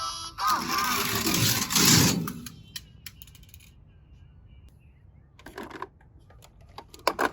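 Die-cast toy cars rolling down a plastic slide: a rattling rush for about two seconds, then a few scattered clicks and clinks as the cars knock together and settle.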